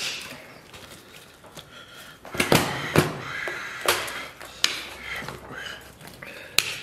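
Iron binding wire being worked loose with pliers from a whole roast lamb on a metal rack: a handful of sharp, irregular clicks and metallic snaps, with handling noise between.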